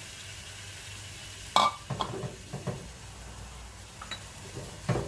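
Kitchen utensils and cookware clinking and knocking at the stovetop: one sharp, ringing clink about a second and a half in, a few lighter knocks just after, and another knock near the end, over a low steady hum.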